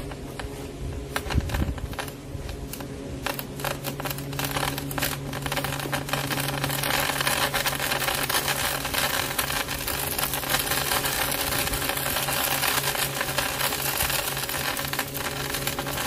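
Burning power cables crackling in a steel cable tray over a steady low hum. The crackling thickens into a dense, loud crackling hiss from about seven seconds in.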